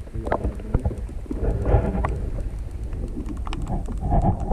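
Water sloshing and bubbling around an action camera held under the surface, heard through its waterproof housing as a muffled low rumble with many scattered small clicks and pops. The rumble builds after about a second.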